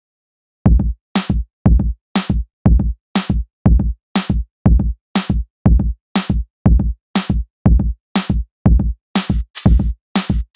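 Electronic background music: a drum-machine beat of about two kick-and-cymbal hits a second that starts under a second in.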